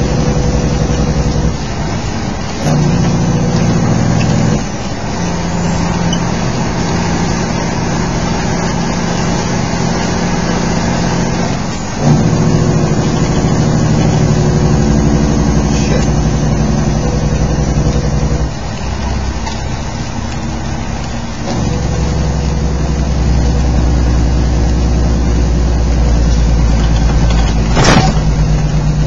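Diesel engine of a Freightliner semi truck running at road speed, heard from inside the cab over steady rain and tyre noise on a wet highway. The engine note steps in pitch and loudness several times, and a short sharp click comes near the end.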